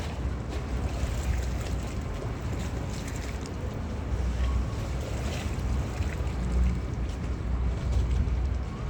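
Boat traffic on a river: a low, steady rumble of boat engines and moving water, with wind gusting on the microphone.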